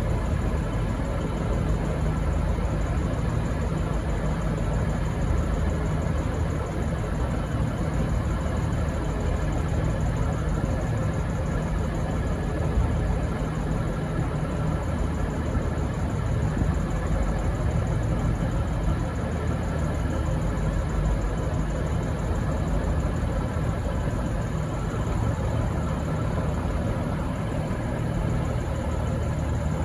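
Diesel-electric locomotive (SSR P class) engine running steadily at idle with a low, even hum.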